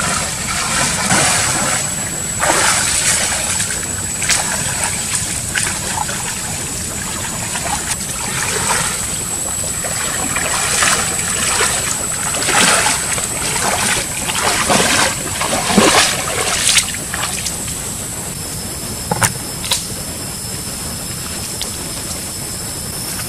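Water splashing and sloshing in irregular surges as a person wades through a shallow creek. The splashing dies down about three-quarters of the way through, leaving a few sharp clicks.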